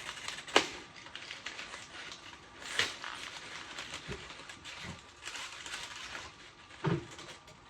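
Groceries being handled and put into a refrigerator: a sharp knock about half a second in, two more knocks later, with rustling and shuffling of items between them.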